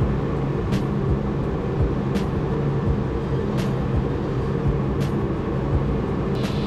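A woodworking shop machine running steadily with a steady hum, and a faint tick about every second and a half.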